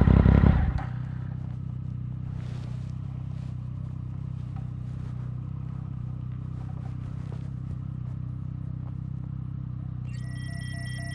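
Triumph Speed Triple 1050's three-cylinder engine with a Competition Werks GP slip-on exhaust: loud for the first second, then it drops off and settles to a steady idle. Near the end, a series of electronic beeps starts.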